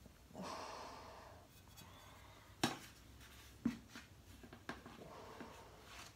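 Powdered silica poured from a plastic scoop into a stainless steel bowl, a soft hiss of sliding powder. Three sharp knocks about a second apart follow in the middle, then another short pour.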